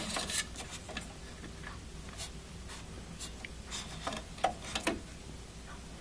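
Faint, scattered clicks and rubbing of hands handling SATA data cables and their plastic connectors inside a desktop computer case.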